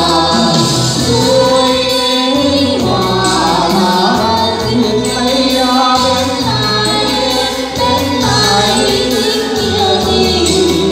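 A man and a woman singing a Vietnamese folk-style duet into microphones, amplified over an instrumental accompaniment with a steady bass line.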